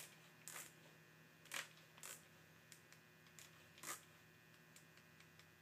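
Near silence with a low steady hum, broken by a handful of faint, short scrapes and rustles as the handle of a micrometer click-type torque wrench is turned and handled to set it to 250 ft-lb.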